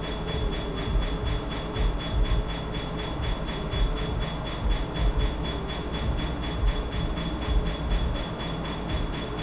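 Tattoo removal laser firing in rapid, evenly spaced snaps, about five a second, over the steady rush of a cold-air skin cooling machine.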